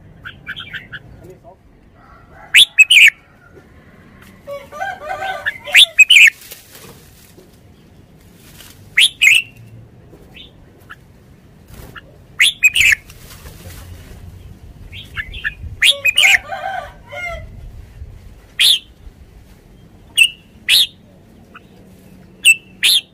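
Caged red-whiskered bulbul calling: short, sharp, loud notes repeated every one to few seconds, with longer warbling phrases about five and sixteen seconds in.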